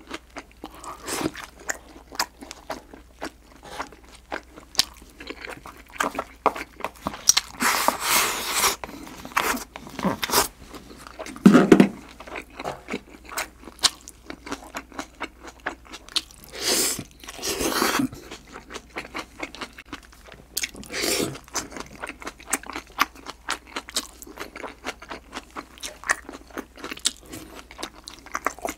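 Close-miked chewing and crunching of green onion and thin-sliced pork belly: many small crisp crunches and clicks, with a few longer, louder noisy stretches, the loudest around the middle.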